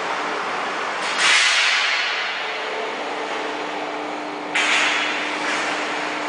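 PVC hot-and-cold mixer unit running: a steady mechanical noise with a low hum, broken twice by a sudden hissing rush that fades over about a second, about a second in and again at about four and a half seconds.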